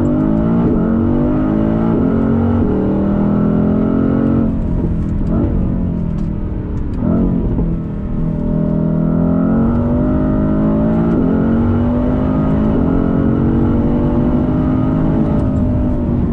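Mercedes-AMG GT C's 4.0-litre twin-turbo V8 heard from inside the cabin, pulling through the gears of its 7-speed dual-clutch gearbox. The engine note climbs and then drops back at each of several shifts, eases off briefly around eight seconds in, and pulls again.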